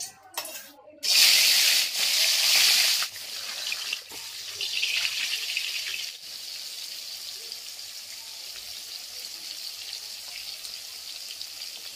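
Fish steaks going into hot oil in a steel wok: a loud burst of sizzling about a second in, easing after a couple of seconds into the steady sizzle of frying.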